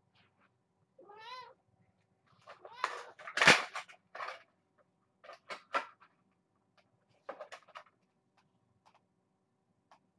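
A kitten meows once, about a second in. Then comes a run of short, noisy bursts, loudest about three and a half seconds in, and a few more scattered ones later, as the kittens play.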